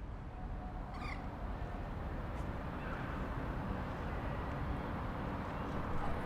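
Steady outdoor background noise with a short, high animal call that rises in pitch about a second in.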